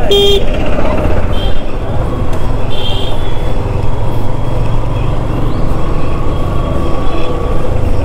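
Yamaha motorcycle riding slowly, its engine and wind noise a steady low rumble, with a short horn toot right at the start and brief, higher horn beeps about a second and about three seconds in.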